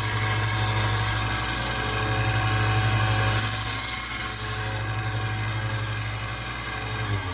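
1x30 Rikon belt sander running with a steady motor hum, while a steel knife blade is ground freehand against the belt in two spells of loud high hissing, one at the start and one about three and a half seconds in. The motor is switched off at the very end and begins to spin down.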